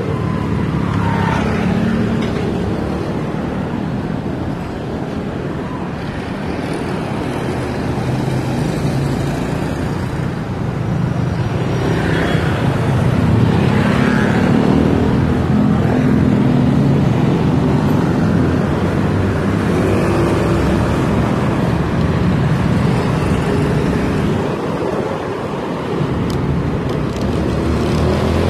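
Steady road traffic noise of cars and motorbikes on a busy city street, heard from a moving electric kick scooter, with a few vehicles swelling and fading as they pass.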